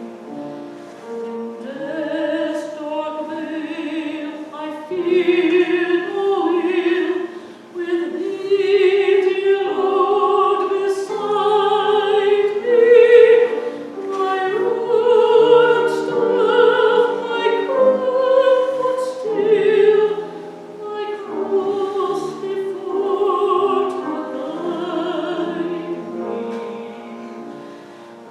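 A woman singing a solo with instrumental accompaniment, in long, held notes.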